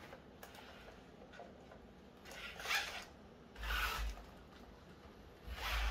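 Nao humanoid robot's joint motors whirring in three short, faint, raspy bursts as it bends into a crouch and moves its arms to act out a sport. The last two bursts come with a soft low bump.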